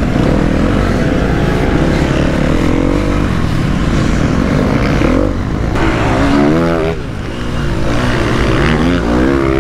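Engine of a KTM 250 SX-F four-stroke motocross bike running under throttle. Its pitch climbs steeply twice as it accelerates, about six seconds in and again near the end.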